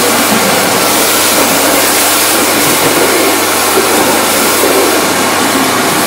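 Kärcher pressure washer running steadily: a low motor hum under the hiss of water jetted from its rotating patio-cleaner head onto paving slabs.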